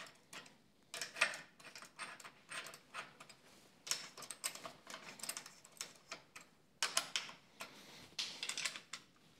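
Light irregular clicks and taps of metal parts being handled at a dirt bike's handlebar mount, as the bar, clamp and bolts are set in place by hand.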